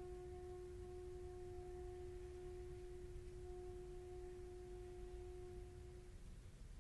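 A single held note from the flute-and-piano duo, the last note of the piece, ringing on steadily and dying away about six seconds in over a low hum of hall noise.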